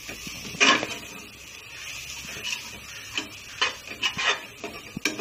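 Metal spatula scraping and knocking against the inside of an aluminium pressure cooker as onions and spice powders are stirred, in irregular strokes with the loudest knock just under a second in.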